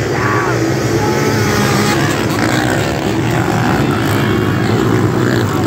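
A pack of pit bikes (small dirt bikes) racing together off the start and up a hill, many small engines revving at once in a loud, steady, overlapping drone.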